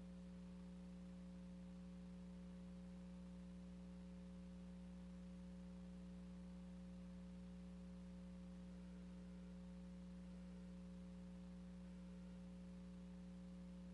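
Near silence: a steady low hum with faint hiss, the empty soundtrack of silent film footage.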